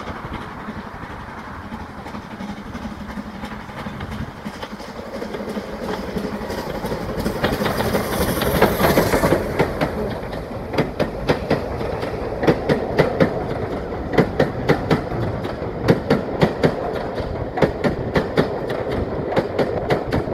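Steam train approaching and passing close below, its rumble growing louder, with a burst of hiss as the locomotive goes by about eight to nine seconds in. Then the coaches roll past with a steady clickety-clack of wheels over the rail joints.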